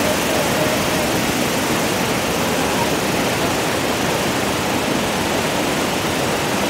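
A waterfall in full spring flood: a steady, loud rush of high whitewater pouring over the falls.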